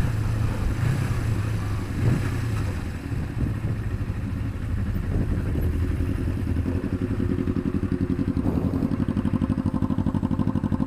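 Small parallel-twin sport motorcycle running with wind noise on the camera, then settling about six seconds in to an idle with an even, steady pulsing beat.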